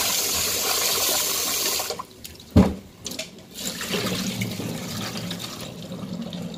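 Tap water running into a metal pan of purple sticky rice while a hand swishes the grains, stopping about two seconds in. A sharp knock follows, then rinse water pouring and trickling through a mesh strainer as the rice is drained.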